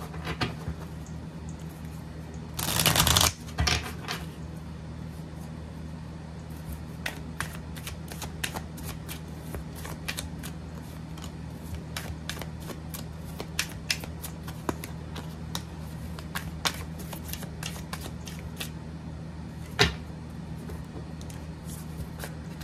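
A deck of tarot cards being shuffled by hand: a loud rustling burst about three seconds in, then a long run of light card clicks and flicks as the deck is shuffled, with one sharper snap near the end.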